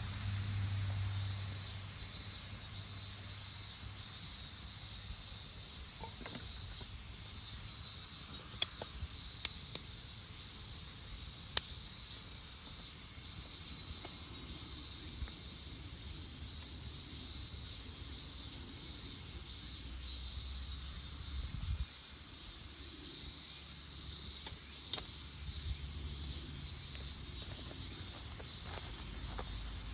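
A steady, high-pitched chorus of summer insects in a forest, with a few sharp clicks about nine to twelve seconds in.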